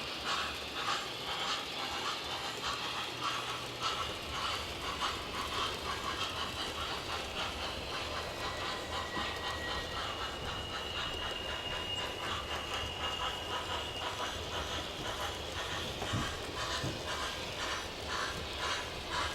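MTH HO-scale model steam locomotive running with its onboard sound system playing steady, rhythmic chuffing, along with the running noise of the model train on its track.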